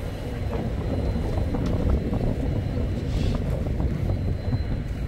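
Steady low rumble of a boat's engines running at sea, mixed with wind on the microphone.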